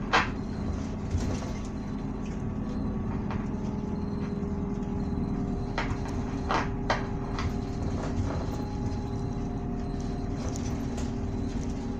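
Cabin running sound of a 2019 Isuzu Erga city bus (2DG-LV290N2) on the move: the steady hum of its four-cylinder diesel under road noise. The engine note changes a little before halfway, and a few sharp rattles or knocks come from the cabin, one at the very start and two together about halfway through.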